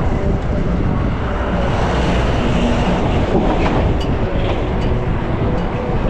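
Steady rush of street traffic and riding noise picked up by a GoPro on a fixed-gear bicycle moving through city streets.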